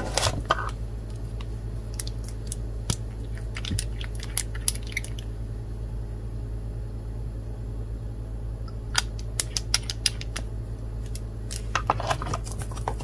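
Small glass stamping-polish bottles and their plastic screw caps clicking and tapping as they are picked out of a foam tray, opened and handled. The clicks come in two clusters with a quieter spell in the middle, over a steady low hum.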